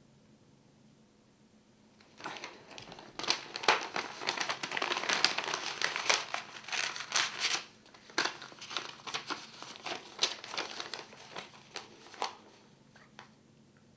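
A paper envelope being torn open by hand: several seconds of dense tearing and crinkling, then lighter, sparser paper rustling as the letter inside is pulled out and unfolded.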